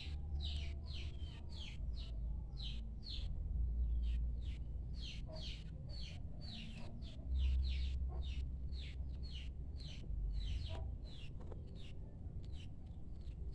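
A small bird chirping over and over, each chirp a quick falling note, about two to three a second, over a low steady rumble.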